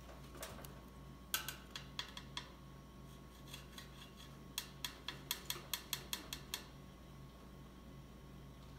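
Chinchilla gnawing on a wooden ledge: crisp clicking bites, a few scattered ones in the first couple of seconds, then a quick run of about a dozen over two seconds. A faint low hum runs underneath.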